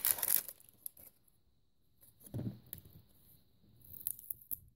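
Plastic shrink-wrap crinkling and tearing as it is peeled off a plastic toy egg, in short bursts: one at the start and a few more near the end. A dull bump from handling the egg comes about two and a half seconds in.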